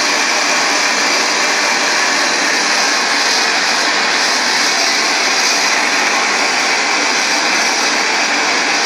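LPG gas torch flame burning steadily with an even, unbroken rushing noise, heating a boiler joint up towards silver-soldering temperature.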